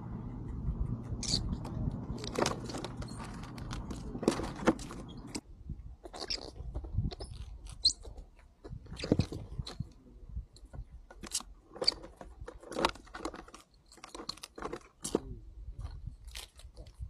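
Ground squirrels crunching and chewing crisp wafer biscuits, an irregular run of sharp crunches and clicks.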